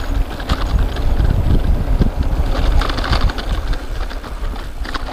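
Rockrider XC50 mountain bike rolling fast downhill on a dirt trail: tyres running over the ground and the bike rattling over bumps in quick irregular clicks. Wind rumbles heavily on the action camera's microphone.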